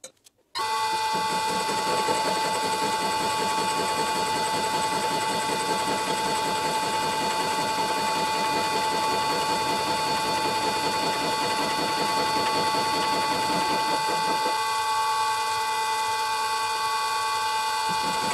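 Vintage Karger lathe starting up suddenly about half a second in and driving an 80 mm face mill with APMT carbide inserts through a facing cut on a metal block: a steady machine whine with a rough cutting rattle underneath. The cutting rattle drops away for a few seconds near the end, leaving the spinning cutter and drive whine, then returns.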